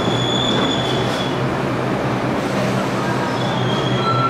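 R142A subway train moving through an underground station with a steady rumble of wheels on rail. Thin high squealing tones fade out about a second in and come back near the end.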